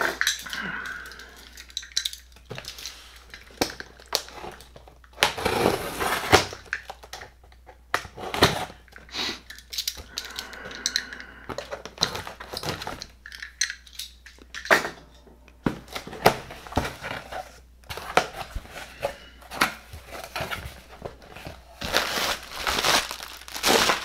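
A cardboard shipping box being opened by hand: a utility knife slitting the packing tape, tape tearing, and the cardboard flaps scraping and crinkling, in a run of short rustles and clicks with a longer burst of rustling near the end as the flaps are pulled open.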